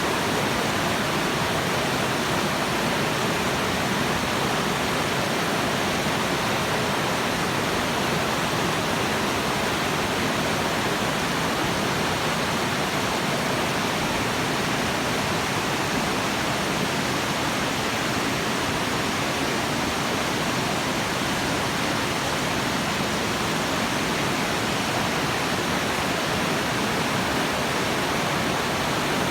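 A creek's water rushing steadily, an even unbroken rush.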